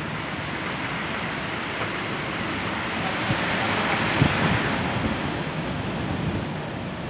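Strong storm wind gusting through large trees: a steady rushing that swells to a peak about halfway through, with a few low thumps of wind hitting the microphone.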